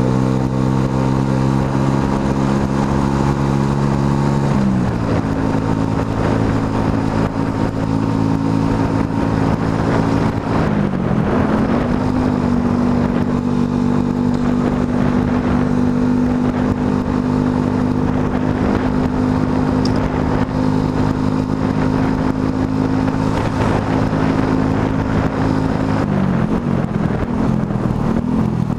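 Motorcycle engine running under way, holding a steady pitch for long stretches: it drops about four seconds in, dips and picks up again around eleven seconds, and shifts once more near the end, over steady wind and road noise.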